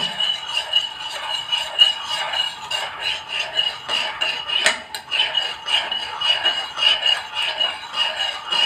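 Metal spoon stirring a cornflour slurry in a glass bowl, scraping and clinking against the glass in quick, even strokes to keep it free of lumps. One sharper clink comes about halfway through.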